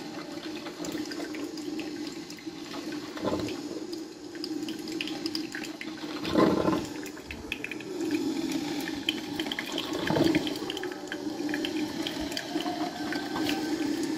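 De'Longhi drip filter coffee maker brewing: its heater pushes boiling water up to the grounds with a steady bubbling hiss and crackle, and three louder gurgles about three, six and ten seconds in.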